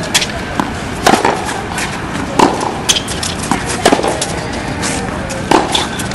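Tennis rally on a hard court: sharp pops of racket strings meeting the ball and of the ball bouncing, about seven in all, one every second or so, over steady outdoor background noise.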